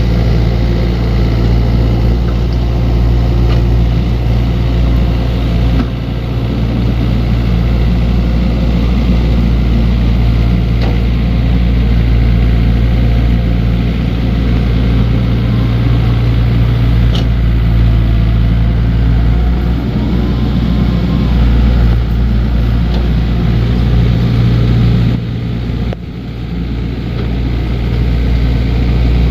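Diesel engine of heavy construction machinery running steadily with a deep, even drone, dipping briefly about 25 seconds in before picking up again.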